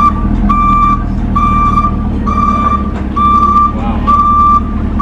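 Vehicle reversing alarm beeping steadily, about one beep a second, each beep about half a second long, over the low steady rumble of an idling engine.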